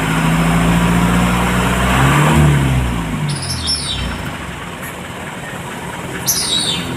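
Wing van truck engine running, revved briefly about two seconds in and then easing back down to a quieter idle. Two short high bird chirps come later.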